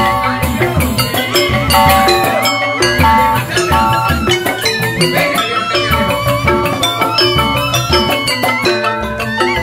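Live Balinese joged bumbung gamelan playing: bamboo xylophones ringing out quick melodic notes over kendang hand drums.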